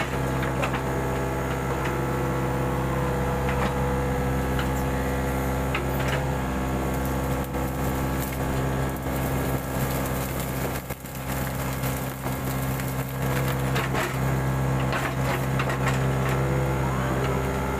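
Mini excavator's diesel engine running steadily, with scattered knocks and cracks from the machine at work.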